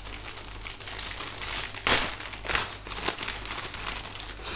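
Clear plastic poly bag holding plastic model-kit runners crinkling and crackling as hands handle it, with a sharper, louder crackle about two seconds in and another half a second later.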